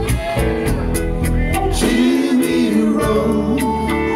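Live rock band playing: electric guitars over bass and drums, with singing.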